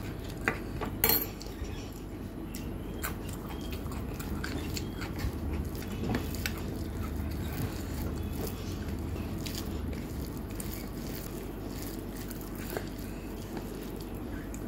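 A metal spoon clinks against a steel bowl twice about a second in as mashed potato is served. Then fingers mix rice and mashed potato on a plate, with soft squishing and scattered light clicks over a low steady hum.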